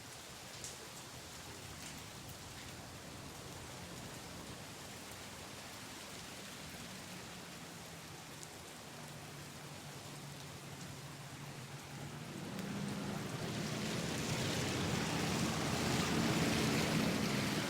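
Steady rain falling, with individual drops tapping early on and a faint low hum underneath; the rain swells noticeably louder and heavier about two-thirds of the way in.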